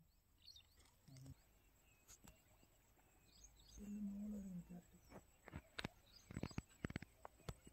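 Quiet outdoor ambience with a few faint bird chirps. About four seconds in comes a short low voice-like hum, followed by a quick run of sharp clicks over the next two seconds.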